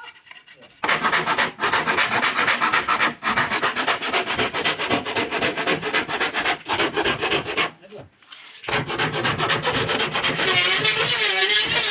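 Rapid, even rubbing strokes on wood, like hand sanding or filing a door part. They start about a second in, pause for about a second past the middle, then carry on.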